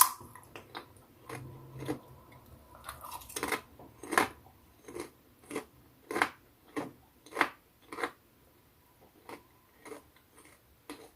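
A person chewing a crunchy Popcorners popped-corn chip, Spicy Queso flavour: a run of sharp crunches about one or two a second, growing fainter near the end.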